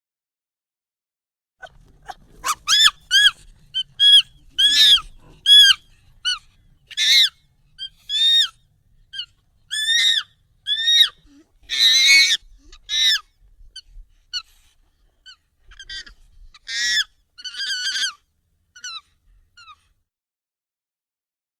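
Monkey calls, sped up and pitched up: a run of short, high calls, each arching up and down in pitch, about one or two a second, starting about two seconds in and thinning out near the end.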